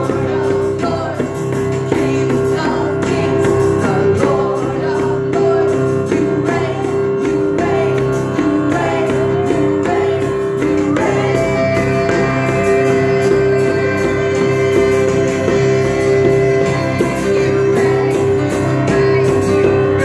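Live church band playing: several voices singing over guitar and drums, with a djembe slapped by hand close by.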